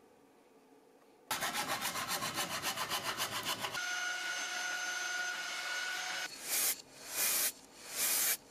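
A saw cutting wood in quick, even strokes, then a handheld power tool running over a board with a steady whine, then short hissing bursts from an aerosol spray-paint can as the board is sprayed black.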